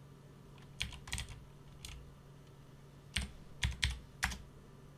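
Computer keyboard being typed on: separate keystroke clicks, a few about a second in, then a quick run of keystrokes near the end.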